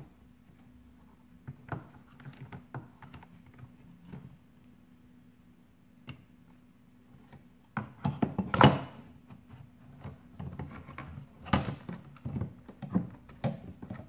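Plastic and metal parts of a disassembled DeLonghi espresso machine being handled by hand: scattered clicks, knocks and rattles, sparse at first and louder and busier from just past halfway.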